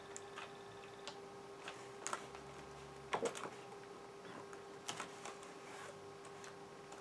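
Keys being pressed on an IBM ThinkPad 600E's keyboard: a dozen or so scattered clicks at irregular spacing, over a faint steady hum.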